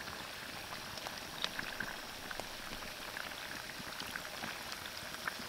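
Battered fish fillets deep-frying in a pot of hot oil, the oil sizzling and bubbling steadily with scattered small pops.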